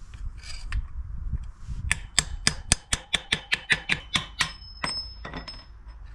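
A hammer taps a headset cup removal tool in a quick run of about a dozen sharp metallic strikes, roughly five a second, then a few more, with a brief metallic ring. This is driving a tight headset bearing cup out of a bicycle head tube.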